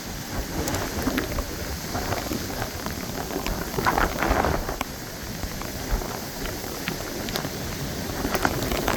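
Hurricane rain falling steadily, with wind rumbling on the microphone and scattered raindrop taps.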